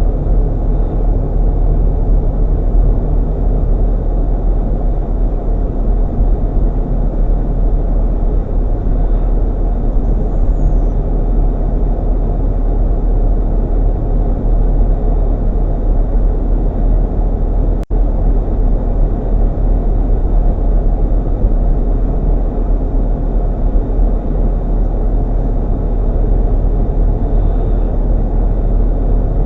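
Steady low rumble of a GMC Yukon driving: engine and road noise. One sharp click with a momentary dropout about two-thirds of the way through.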